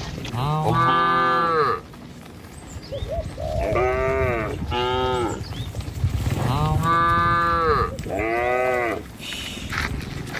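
Cattle mooing over and over: about six drawn-out calls in quick succession, each rising and then falling in pitch, from more than one animal.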